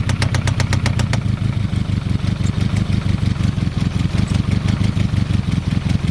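Citroen ZX 1.9 engine running with a sharp, rapid knock, about eight a second, that fades away a little over a second in, leaving a steady idle rumble. The knock is the fault the car is shown for.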